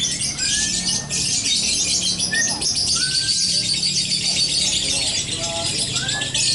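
Dense chorus of many contest songbirds singing at once: a constant high-pitched chatter, with a few short rising whistles standing out every second or two. A steady low hum runs underneath.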